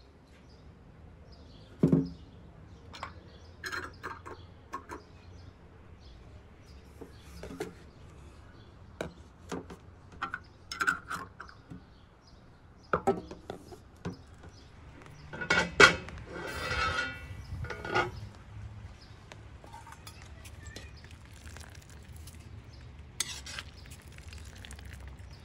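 Glass jars and metal twist-off lids clinking and knocking as the jars are handled and capped: scattered light clicks, then a louder run of clinks and scraping about halfway through.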